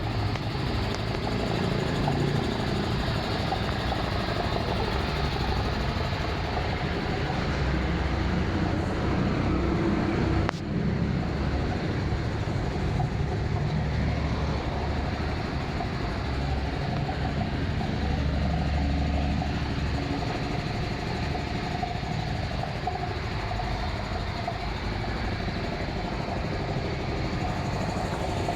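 Portable road-construction air compressor's engine running steadily, with a low, even drone.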